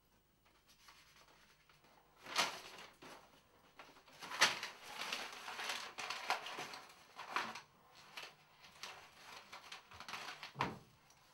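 Paper pages being torn one after another off a tear-off wall calendar: several sharp rips a couple of seconds apart, with paper rustling between them.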